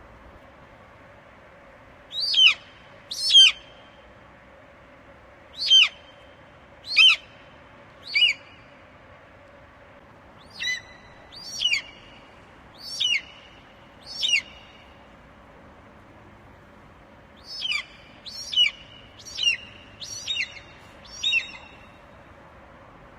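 Eagle calling: short, high, whistled calls that sweep sharply downward, given about one a second in four bunches of two to five calls. A faint steady hum runs underneath.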